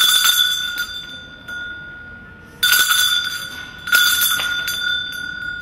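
A bell struck twice, about a second and a half apart, each stroke ringing on with a clear high tone and slowly fading; the ring of an earlier stroke is dying away at the start.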